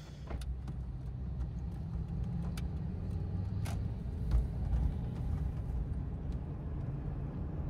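Truck on the road: a steady low engine and road rumble, with a few faint clicks.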